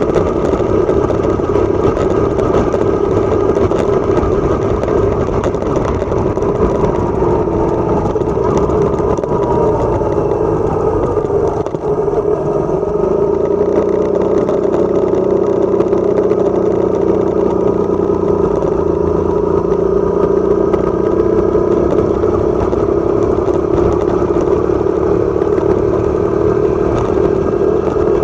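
Motorcycle engine running steadily while riding, with wind noise over the microphone; the sound dips briefly about twelve seconds in.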